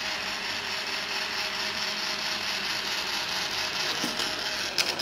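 Vacuum cleaner running with a steady whirr and a faint hum, a few sharp clicks near the end, after which it gets quieter.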